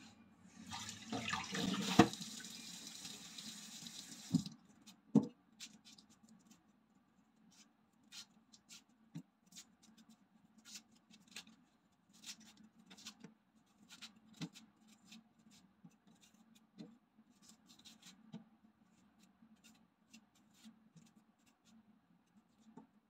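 Kitchen tap running into a steel sink for about four seconds, with a sharp knock partway through, then shut off. After that, a long run of faint, irregular clicks and scrapes as a knife works on a whole onion held in the hand.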